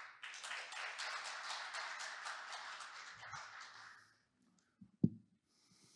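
Audience applauding, dying away after about four seconds, followed by a single short thump about five seconds in.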